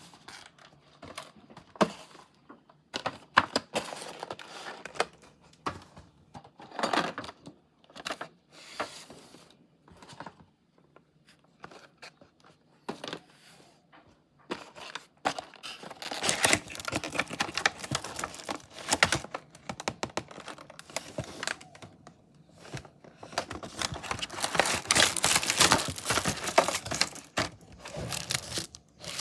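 Packaging being opened and handled: scattered clicks and rustles, then longer stretches of crinkling and tearing in the second half.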